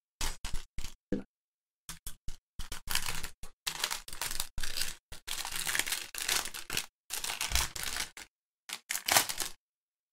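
Plastic packaging holding the diamond painting drills crinkling in irregular bursts as it is pulled open.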